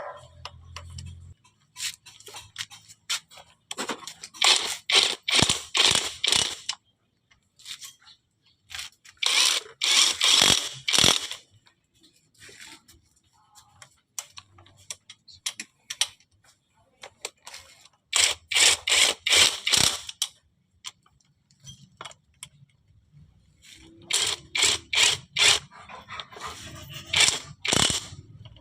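Spells of metallic clicking and scraping from hand tools working on a manual transmission case, each lasting a second or two, with pauses between them.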